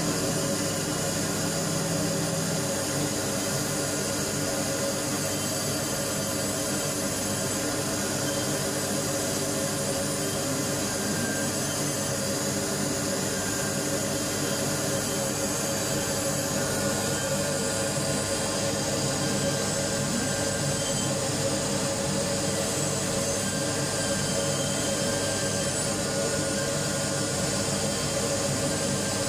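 CNC milling machine's spindle cutting an insole blank, with dust extraction at the cutter head: a steady machine whine over an even rushing noise.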